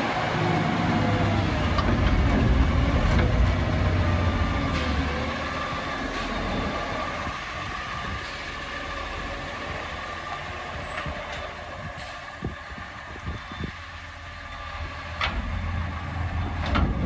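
Front-loading garbage truck's engine revving hard to drive the hydraulics, with a falling whine as the forks lower an emptied dumpster to the ground, then running more quietly. Several metal clanks and knocks come in the last few seconds as the forks pull clear of the bin.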